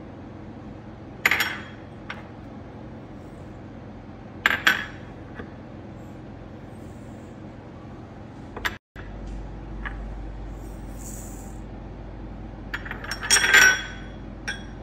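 Ingredients being tipped into a stainless-steel stand-mixer bowl, with four short ringing clinks of dishes against the metal bowl, the loudest a quick cluster near the end, over a steady faint hum.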